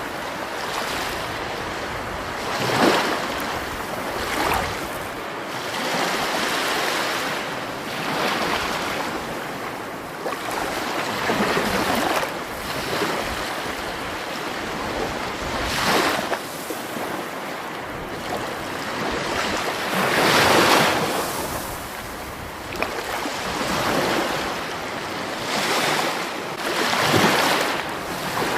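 Rushing water, a continuous noise that swells into louder surges every few seconds.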